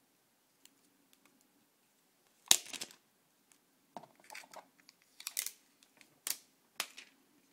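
Clear plastic packaging crinkling and clicking as it is handled: a handful of short, sharp crackles, the loudest about two and a half seconds in.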